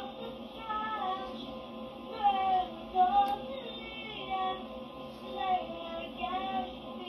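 A young girl singing a melody, heard through the speaker of a Sony baby monitor receiver, so it sounds thin and cut off at the top.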